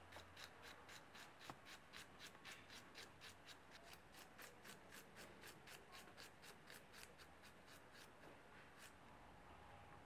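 Red onion being sliced by hand against a knife blade: a quick, even run of faint crisp cuts, about four a second, stopping near the end.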